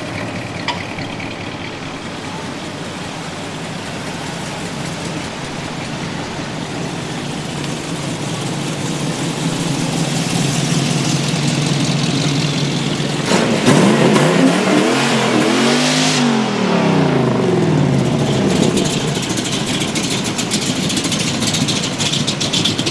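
Classic American cars driving slowly past one after another, their engines running. About halfway through, one engine revs up and drops back down. Near the end a closer car adds a fast pulsing exhaust rumble.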